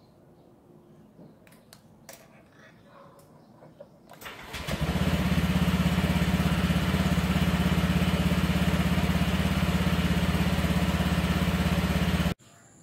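Honda Click (Vario) scooter's fuel-injected single-cylinder engine starting about four seconds in, then idling steadily. It stops abruptly near the end.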